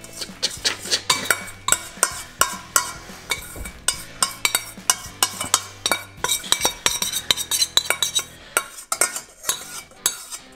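A spoon scraping and clinking against the inside of a stainless steel bowl, scraping out melted chocolate, with sharp scrapes and taps two or three times a second.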